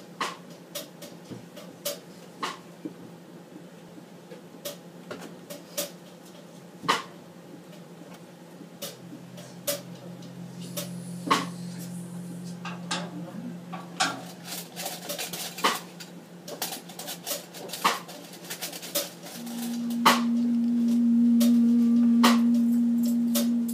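Glasses, dishes and cutlery clinking in sharp scattered clicks over a low steady hum. About twenty seconds in, one steady low note comes in and is held.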